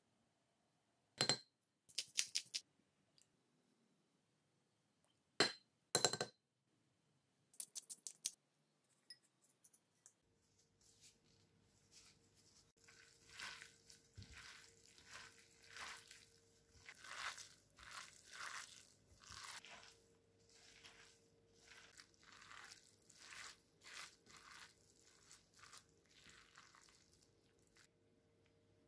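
A few sharp clinks of a spoon and seasoning containers against a glass bowl. Then a gloved hand squishes and kneads minced pork dumpling filling in the glass bowl in a steady rhythm, with a faint steady hum behind it.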